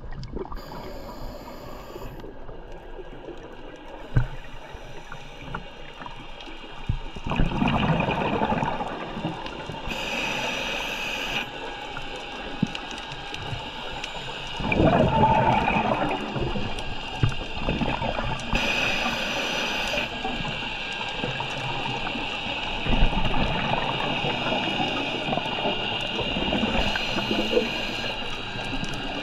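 Scuba diver breathing through a regulator underwater: a short hiss on each inhalation about every eight or nine seconds, with louder bubbling exhalations in between.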